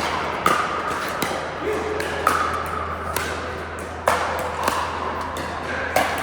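Pickleball paddles hitting a plastic ball and the ball bouncing on the court during a rally: a run of sharp pops roughly every half second to second.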